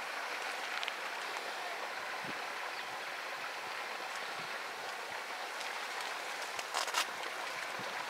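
Steady rushing of a stream, with a brief cluster of sharp clicks about seven seconds in.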